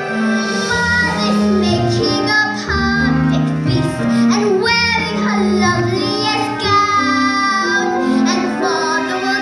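A child singing a show tune over instrumental accompaniment, with long held notes.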